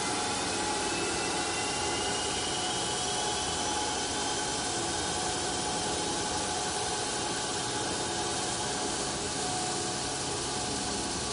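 Ceramic-grain abrasive belts grinding a metal block fed by a robotic arm: a steady hiss of belt on metal with faint high whining tones from the running belt grinder.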